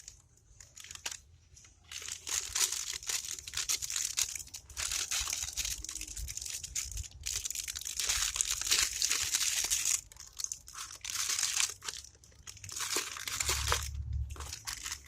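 Packaging being handled and crumpled: a crinkling that starts about two seconds in and goes on in long stretches, with a short break near the middle.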